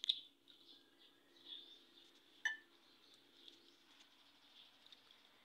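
A spoon clinks against a bowl twice: a sharp clink at the start and another, ringing briefly, about two and a half seconds in.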